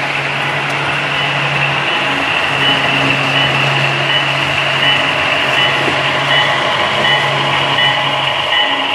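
Model diesel locomotive running slowly on a layout, its onboard sound unit giving a steady low engine hum over the rolling noise of wheels on track. A high tone that repeats evenly grows clearer near the end.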